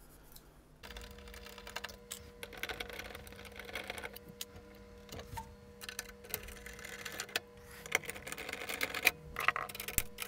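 Hand tools working on a scanner's metal roller assembly: irregular small metal clicks, taps and scraping as a screwdriver and then side cutters are used on the parts. The clicks grow sharper and more frequent near the end. From about a second in, a faint steady hum runs underneath.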